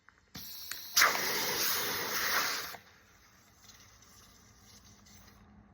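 Compressed air hissing at a quad tire's valve: a softer hiss, then about two seconds of loud hissing that stops abruptly.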